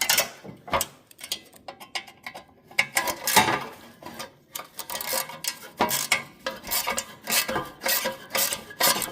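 Hand tools working a stuck bolt on a small engine's sheet-metal shroud: irregular metallic clicks, knocks and scrapes of a wrench turning while pliers hold the bolt steady.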